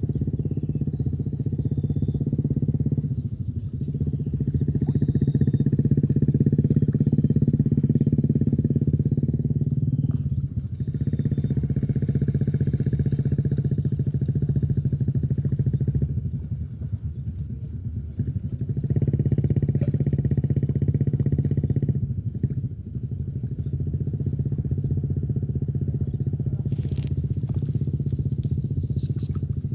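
An engine running steadily with a low, rough drone, easing off briefly a few times.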